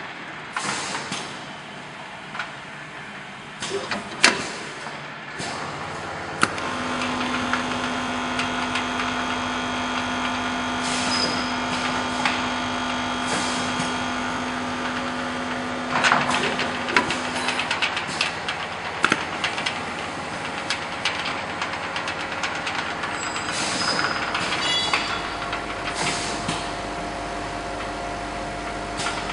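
ZV-720 powder packing machine starting up and running. A few knocks and clacks come first, then a steady motor hum sets in about six seconds in, with a held tone for about ten seconds. Repeated metallic clacks and rattles come from its clamps and moving parts.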